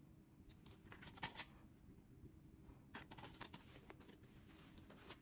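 Faint rustling and scraping of cardboard CD sleeves being handled and laid among others, in short clusters about a second in and again around three seconds in, over a low steady room hum.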